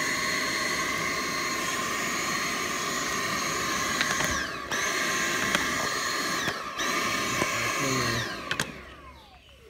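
Vacuum cleaner running with a steady whine, its pitch dipping briefly twice. Near the end it is switched off and the motor winds down, the whine falling away.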